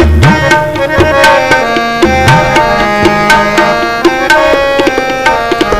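Tabla and harmonium playing an instrumental interlude of Sikh kirtan: quick tabla strokes over held harmonium chords, with the bass drum's pitch sliding upward a couple of times.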